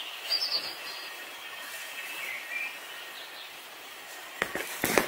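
Steady outdoor background hiss with a couple of faint bird chirps, and a few short clicks near the end.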